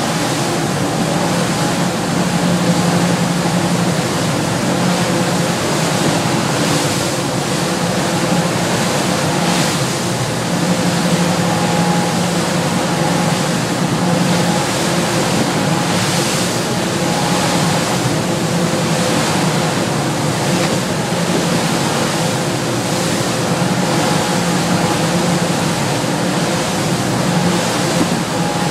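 Diesel engines of a Viking sportfishing yacht running steadily at cruising speed, a constant low drone, under a continuous rush of wind and water noise from the hull cutting through chop.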